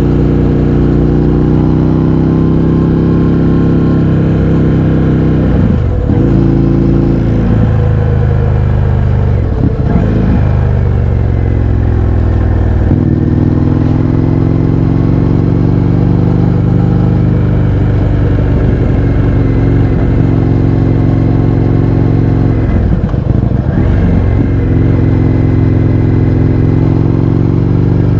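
Indian FTR 1200's V-twin engine running through an Akrapovic exhaust with the baffles removed, loud and continuous. Its note dips sharply and climbs again several times: around six, ten and thirteen seconds in, and again past twenty.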